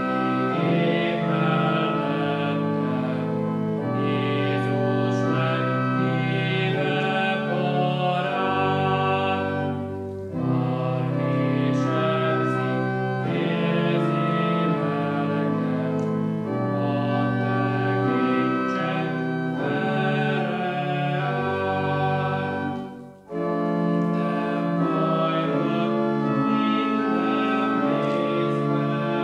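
Church organ accompanying hymn singing, slow held chords moving line by line, with short breaks between lines about ten and twenty-three seconds in.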